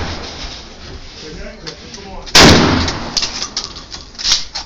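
A single loud gunshot at a shooting range about two and a half seconds in, with a trailing echo. The tail of the previous shot fades at the start, and fainter sharp cracks follow near the end.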